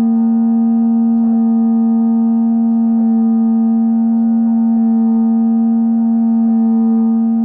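Feiyutech G5 gimbal motor giving a loud, steady hum at one unchanging pitch with fainter overtones above it: the abnormal motor noise that the owner says comes and goes on this gimbal.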